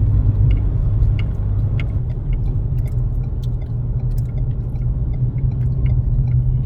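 Dump truck's diesel engine and road noise as a steady low rumble while driving, heard from inside the cab. Scattered light clicks and rattles run through it.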